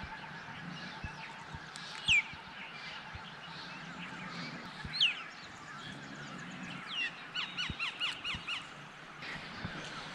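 Birds calling at dawn: a few sharp, high whistled notes that sweep downward, then a quick run of short falling notes about two-thirds of the way through, over a faint steady background hiss.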